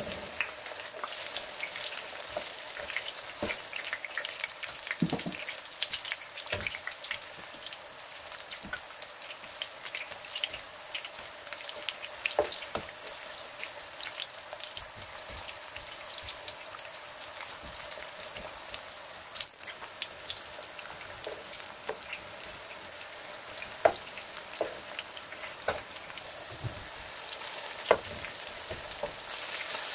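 Thin potato slices frying in hot oil in a wok: a steady sizzle with dense crackle, broken by a few sharp knocks of a wooden spatula against the pan, the loudest two near the end.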